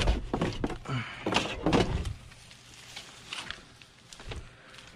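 A Sony VCR set down into a cardboard box with a single thunk, followed by a few lighter knocks and rustles of handling.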